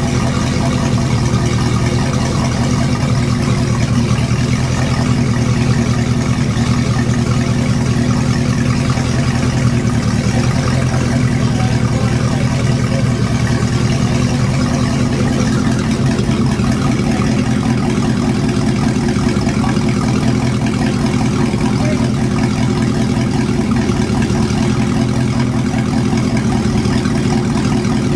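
Freshly rebuilt Volvo Penta 5.7L GXi-J marine V8 running steadily at a constant speed, with no revving.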